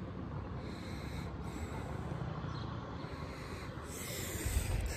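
Wind rumbling on a handheld phone microphone, with handling noise; a louder bump near the end as the phone is moved.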